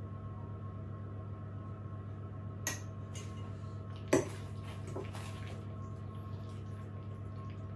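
Metal cutlery clinking three times against a ceramic plate, the loudest clink about four seconds in, over a steady low hum.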